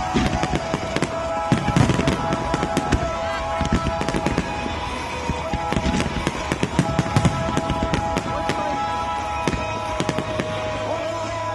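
Aerial fireworks shells bursting and crackling in quick succession, over music from the show's loudspeakers that the display is synchronised to.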